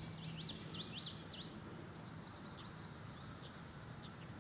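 Faint songbird singing: a quick run of slurred, rising-and-falling whistled notes in the first second and a half, then softer scattered chirps, over faint background noise.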